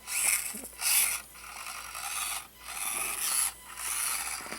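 Axial SCX24 micro crawler driving in stops and starts: a raspy scraping of its small drivetrain and tires working over the course, in uneven bursts with short pauses.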